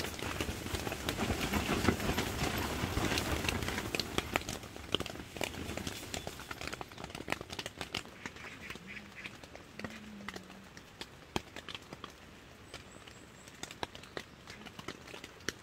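Rain and wind on a tipi tent, heard from inside: a dense patter of drops with many sharp taps on the fabric, heavier for the first several seconds and then easing off.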